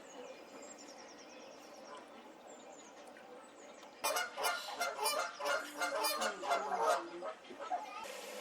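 Goose honking: a run of rapid, harsh honks for about three seconds starting halfway through. Before it there is faint chirping of small birds.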